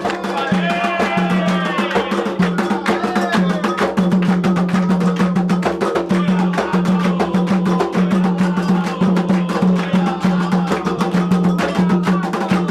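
Candomblé atabaque drums playing a fast, steady rhythm of quick strikes, with singing over them: a sacred chant played to invoke the orixás.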